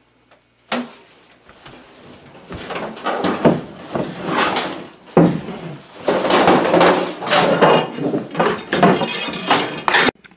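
The sheet-metal cabinet of an electric furnace being lifted and wrestled by hand, rattling, scraping and banging in a long run of irregular clatters that starts about a second in. It cuts off suddenly near the end.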